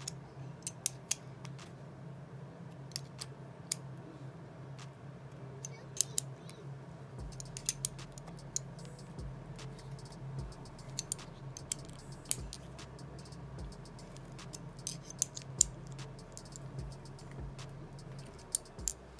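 Small metal clicks and scrapes, irregular and scattered: the steel clamp collar around a nitro engine's piston sleeve is being handled and its clamp screw turned with an Allen key to pinch the sleeve tighter. A steady low hum runs underneath.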